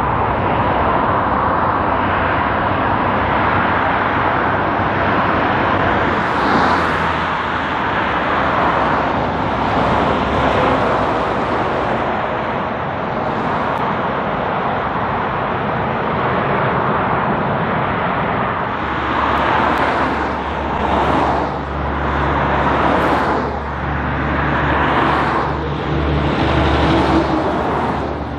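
Heavy road traffic: the steady tyre and diesel engine noise of a truck and trailer driving away, then a conventional big-rig truck's diesel engine drone coming in about two-thirds through as it approaches, with several vehicles swishing past near the end.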